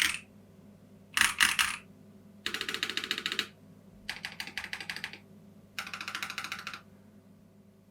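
Mechanical keyboard fitted with Gazzew Boba U4T tactile switches being typed on: two short clusters of keystrokes, then three runs of rapid typing, each about a second long, with short pauses between.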